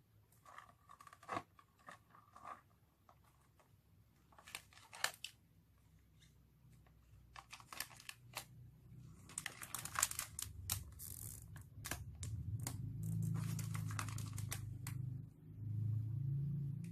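Crinkling and crackling of plastic snack wrappers and light clicks of a cardboard snack box as the packs are picked up, handled and set down, densest about ten seconds in. A low steady hum builds up in the second half.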